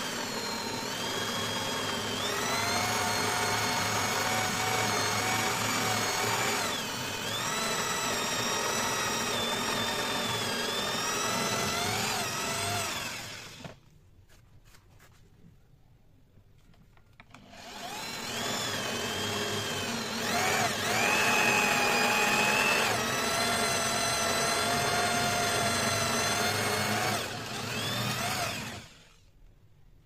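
Electric hand drill with a Forstner bit boring holes into a wooden block: a motor whine whose pitch wavers as the bit bites into the wood. It runs for about thirteen seconds, stops for about four, then runs again for about eleven seconds and stops.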